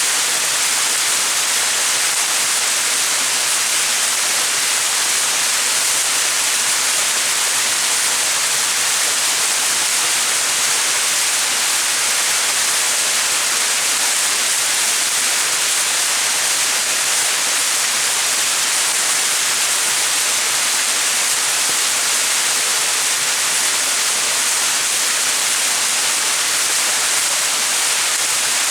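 Small mountain waterfall: water falling and splashing in a steady, even rush, with a hissy edge and little low rumble.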